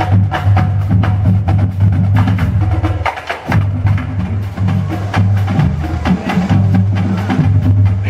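Marching drumline of snare drums, tenor drums and bass drums playing a cadence, with sharp stick strokes and rim clicks over the booming bass drums. The drumming breaks off briefly about three seconds in, one cadence ending, and the next cadence starts up.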